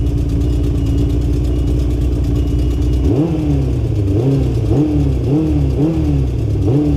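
Kawasaki GPX600's inline-four engine idling steadily, then revved in a series of short throttle blips from about three seconds in, the pitch rising and falling roughly once a second.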